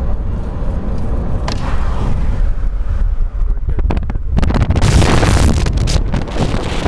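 Steady low road rumble inside a moving car, then from about four seconds in a loud rush of wind buffeting the microphone through an open car window at speed.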